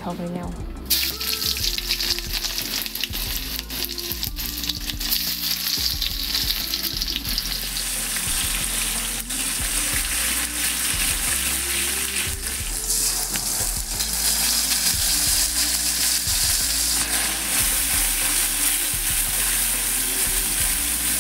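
Sliced onions hit hot oil in a steel kadai and start sizzling hard about a second in, then keep frying steadily while a metal spatula stirs and scrapes against the pan.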